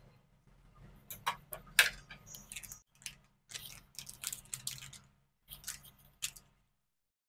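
Steel ladle clinking and scraping against a metal kadai and being set down on the steel stovetop: a run of sharp metallic clicks and knocks, the loudest about two seconds in, over a low steady hum. The sounds stop shortly before the end.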